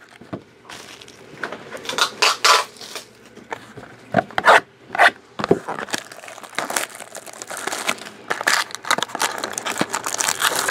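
Plastic wrapping being torn off and crinkled as a sealed box of trading cards is opened, with scraping and rustling handling sounds. The sounds start as separate rasps and scrapes, then turn into steadier crinkling in the second half.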